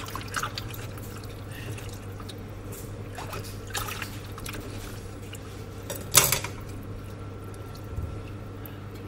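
Water splashing and dripping in a bowl as raw chicken pieces are handled and scraped with a meat cleaver: a few short wet splashes, the loudest about six seconds in, over a steady low hum.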